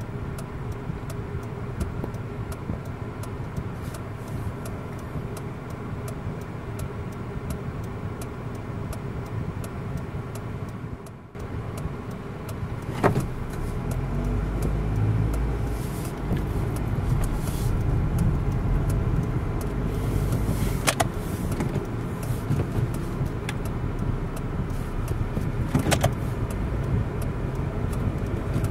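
Car engine and road noise heard from inside the cabin: a steady idle hum while stopped, then a louder low rumble as the car pulls away and drives on from about halfway through. Three sharp clicks in the second half.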